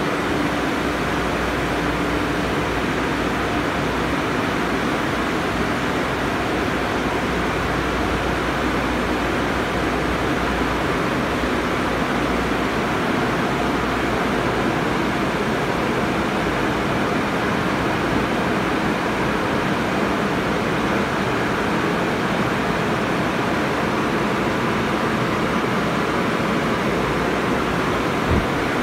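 Automatic tunnel car wash running: a steady, even rush of water spray and wash machinery, with a faint motor hum that fades out about halfway through.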